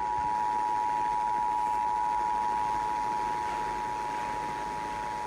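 Emergency Alert System attention signal: the steady two-tone alert of 853 Hz and 960 Hz sounding together, held without a break, heard over a radio broadcast with a faint hiss beneath it.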